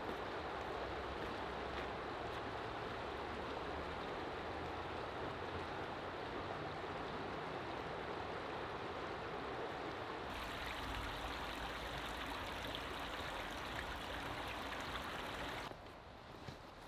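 A river's water rushing steadily over rocks. It cuts off about a second before the end.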